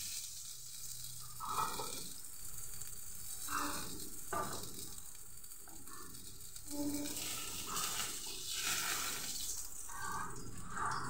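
Fish frying in hot oil in a pan, with a steady sizzle throughout. A few short scrapes and knocks come from a wooden spatula as the pieces are turned and lifted out.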